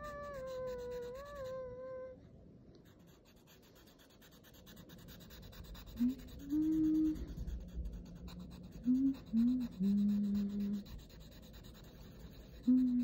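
Black marker pen scratching across paper in quick strokes while a design is inked. In the first couple of seconds there is a long wavering high-pitched call, and from about six seconds in someone hums a few short low notes, the loudest sounds here.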